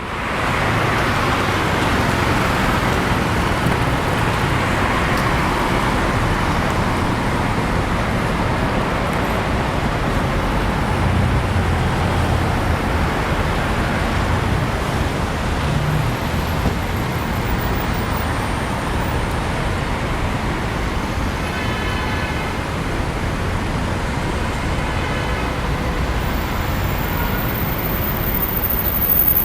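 Steady city traffic on a busy main road: a continuous wash of passing vehicles, with engines rumbling and tyres hissing. A couple of brief high-pitched tones stand out about three quarters of the way through.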